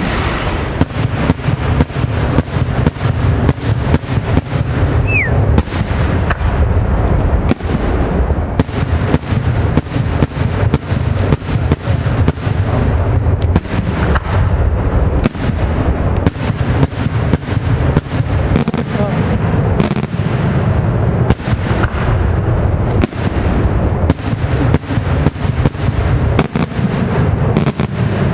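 Daytime aerial firework shells bursting in a dense, continuous barrage: many sharp bangs a second over a low rumble. A short falling whistle about five seconds in.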